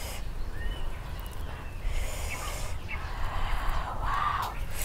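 Lettuce leaves rustling and crinkling as a piece of grilled chicken is wrapped in them by hand and dipped in chili sauce. The rustling comes in patches and is loudest a little after four seconds in. A steady low rumble and a few faint chirps run underneath.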